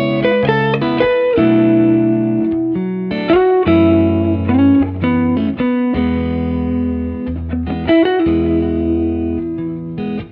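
Background music led by guitar, with notes changing every half second or so over a steady bass.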